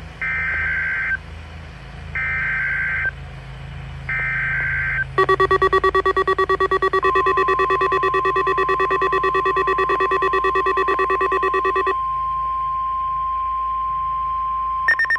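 NOAA Weather Radio weekly test: three one-second bursts of SAME digital header data, then a rapidly pulsing electronic alarm beep for about seven seconds with the steady 1050 Hz warning alarm tone sounding under it and then alone. Near the end, the rapid end-of-message data bursts begin.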